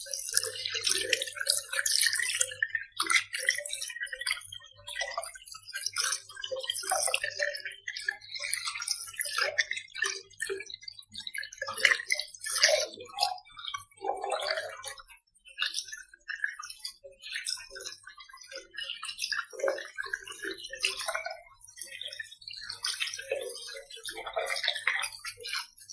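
Water splashing and dripping unevenly, with scattered clicks and knocks.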